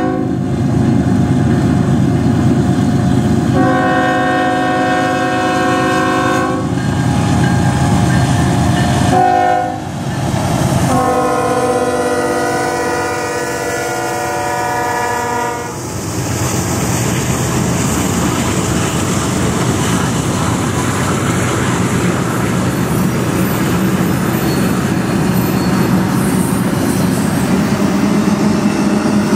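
BNSF freight train's diesel locomotives sounding a multi-chime air horn in a long, long, short, long pattern over their engine rumble, the last long blast ending about sixteen seconds in. After that, the steady rumble and clatter of double-stack container well cars rolling past.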